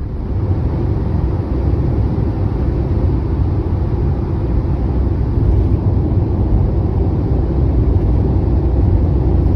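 Steady rumbling road and engine noise of a moving vehicle.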